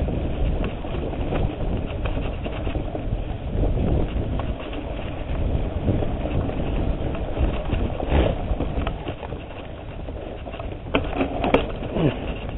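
Mountain bike rolling fast over a rough dirt trail: steady rumble and rattle of the tyres and frame on the bumpy ground, with a few sharp knocks near the end.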